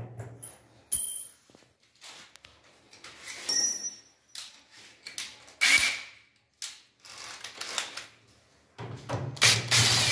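Scattered metallic clicks and clinks from a key being worked in a drilled-out door lock cylinder. About nine seconds in, a drill-driver starts running, backing out the screw that holds the cylinder in the mortise lock.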